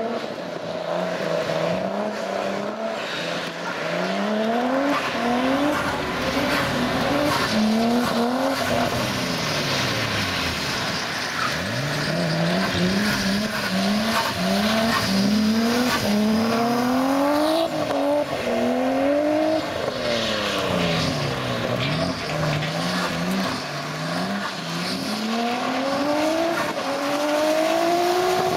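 Nissan Skyline engine revving hard through repeated drifts, its pitch climbing and dropping again every second or two as the throttle is worked to keep the car sliding, with tyre noise and hiss from the wet surface underneath.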